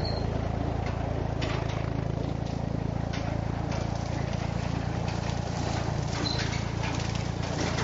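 1958 Massey Ferguson 35 tractor's engine running steadily with its bush hog (rotary cutter) spinning. Scattered sharp snaps and ticks, more frequent in the second half, come as the blades chop through brush and saplings.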